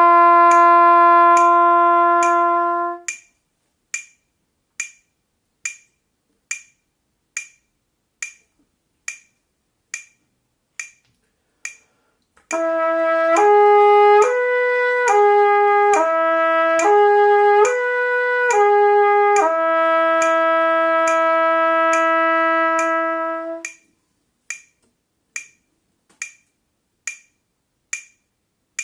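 Trumpet holding a long note that ends about three seconds in, then a metronome clicking alone at about seventy beats a minute. Midway the trumpet plays a slurred lip-flexibility exercise, moving up and down between the 3rd, 4th and 5th harmonics on one valve combination (1-2-3) in quarter notes and ending on a long held note, after which the metronome clicks alone again.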